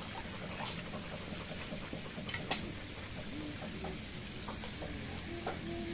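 Water splashing and dripping as a landing net is scooped through the pond and lifted with a hooked catfish, with a few short sharp knocks against the net frame or rail. A low steady hum runs underneath.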